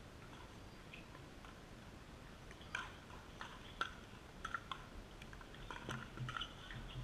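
Scattered light taps, clicks and shoe scuffs on a hard pickleball court, the sharpest click a little under four seconds in.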